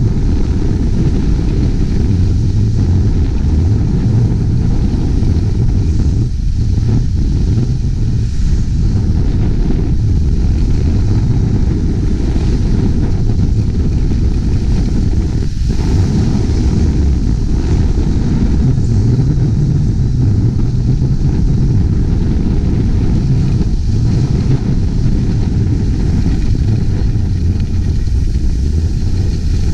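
Wind buffeting a GoPro HERO5 Black's microphone while skiing downhill at speed: a loud, steady rumble, over a fainter hiss of skis sliding on snow.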